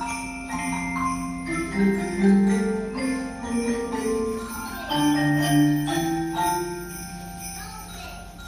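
Handbells played by a school ensemble, ringing a slow melody of sustained, overlapping bell notes over lower held tones.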